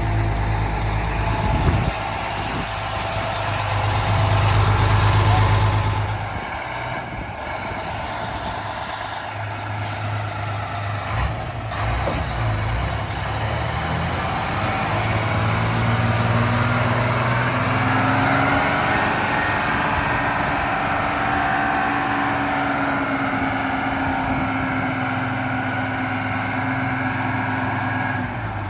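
The FTF logging truck's 6V92TA Detroit Diesel two-stroke V6 running. It swells to a peak and drops back about six seconds in, with two short sharp sounds near the middle; later a higher steady tone comes in and holds.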